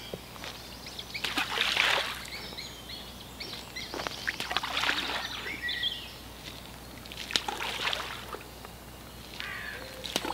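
Handfuls of groundbait thrown into a lake and splashing into the water, four times a few seconds apart, with small birds chirping.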